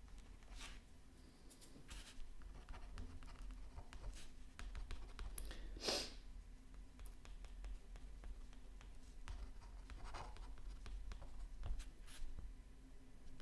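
Pen nib scratching across paper in short strokes, with a louder scrape about six seconds in; the pen drags over the pastel-coated surface, which it doesn't write on well.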